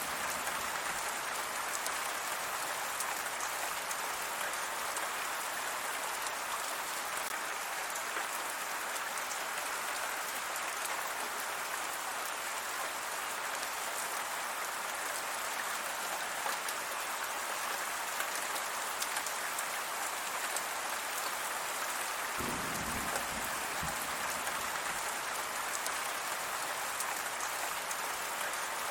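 Steady rainfall pattering on a surface, an even hiss of many fine drops at a constant level. A brief low rumble joins about two-thirds of the way through.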